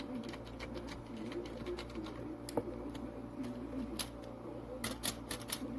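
Pigeons cooing, low and wavering, with scattered sharp clicks, several close together near the end.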